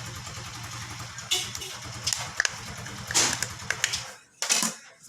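Handling of a mobile phone's box and packaging: a few short, sharp rustles and knocks. Under them a steady low pulsing hum, like an idling engine, cuts out about four seconds in.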